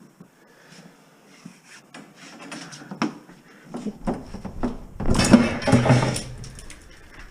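Copper wire being handled and pulled out of the wall: scattered clicks and light clinks, then a loud rough scraping rush about five seconds in that lasts over a second.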